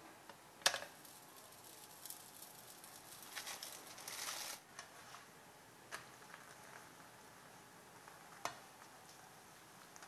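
A frozen chapati slapping down into a nonstick frying pan, then faint sizzling as it cooks, with a plastic spatula clicking against the pan twice later on.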